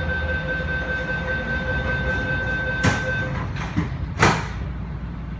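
Door-closing warning tone on an MTR East Rail line MLR train, a steady high tone for about three seconds, then the sliding saloon doors shut: a couple of knocks and a loud thud about four seconds in as the door leaves meet.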